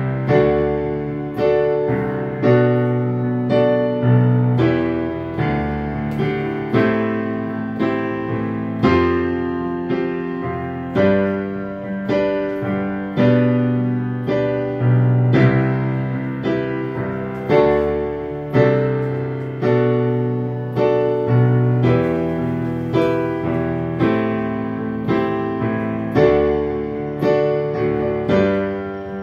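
Digital piano playing a pop-ballad accompaniment with both hands: a steady pattern of chords over a bass line, each attack decaying into the next.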